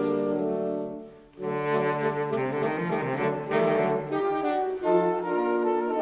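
Saxophone quartet playing held chords in a classical arrangement. The playing fades out about a second in, then resumes.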